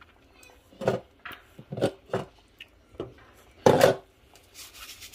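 Kitchen clatter: a handful of sharp knocks and thuds from cookware and utensils being handled, spread out irregularly, the loudest about three and a half seconds in, followed by a faint hiss near the end.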